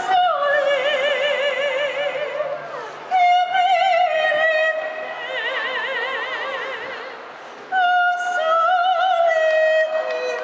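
A female gondolier singing solo, in three phrases with a wide vibrato on the long held notes.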